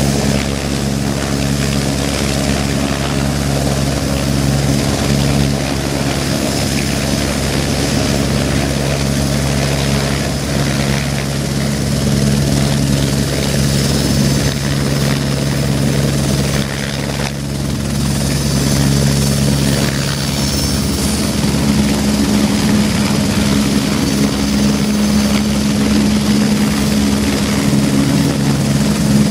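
AS355 F2 Écureuil 2 TwinStar helicopter hovering low, main and tail rotors and twin Allison 250 turboshaft engines running steadily: a continuous low rotor drone with a faint high turbine whine. The low tone shifts a little past the middle as the helicopter yaws round side-on.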